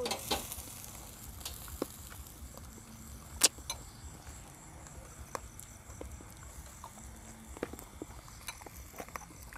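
Scattered light clicks and clinks of tongs, utensils and dishes, with one sharper click about three and a half seconds in, over a faint low rumble.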